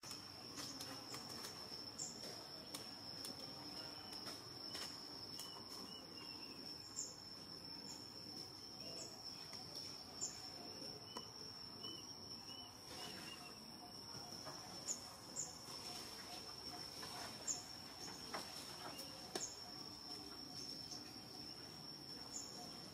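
Insects droning, a steady high-pitched tone, faint, with a few short chirps and scattered light clicks over it.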